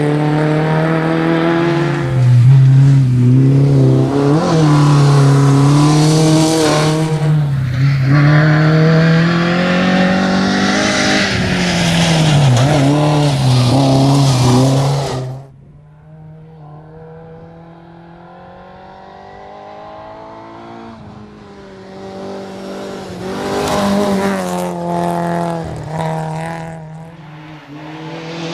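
Opel Corsa GSI rally car engine at full throttle, its pitch climbing and falling through gear changes. About fifteen seconds in the sound drops suddenly to a much quieter, steadier engine note, which grows louder again near the end.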